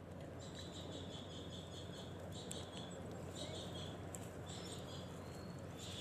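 Faint, high-pitched squeaky chittering in short broken runs, a bird's soft calls, over a low steady hum.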